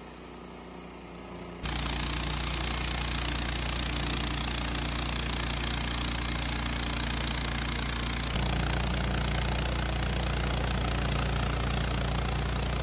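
Woodmizer LT15 Start sawmill running, a steady engine hum that steps up louder about two seconds in and then holds.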